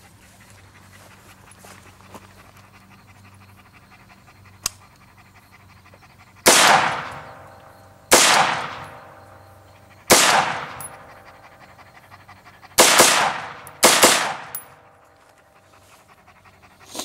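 AR-15 with a DSArms ZM4 upper in 5.56 NATO firing five single shots at uneven spacing, the last two close together. Each shot rings out with a long fading echo.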